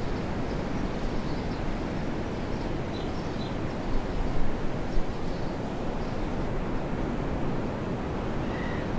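Steady rushing outdoor ambient noise, with faint high chirps now and then and two short calls near the end.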